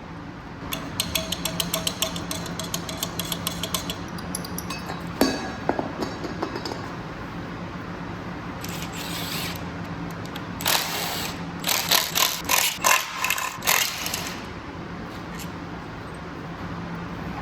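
Hand ratchet clicking in quick strokes while bolts are worked on the engine, with a sharp knock about five seconds in, then further bursts of ratcheting later on.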